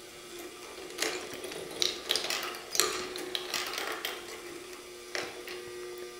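Handmade wooden marble machine running: pachinko-ball-sized steel balls roll along its wire rails and drop through its mechanisms, giving irregular clicks and clacks of steel on wire and wood, busiest in the middle with one more clack near the end. A faint steady hum sits underneath.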